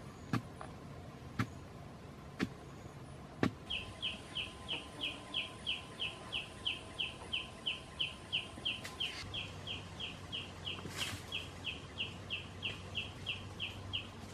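A wooden digging pole striking packed earth in a pit: four dull knocks about a second apart. Then, from about four seconds in, a bird calls a long run of short high notes, evenly spaced at about three a second.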